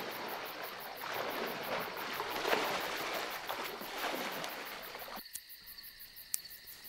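Water splashing and sloshing in a shallow lake, swelling in surges about every second and a half. It cuts off suddenly about five seconds in, leaving a steady high chirring of insects, with one sharp click near the end.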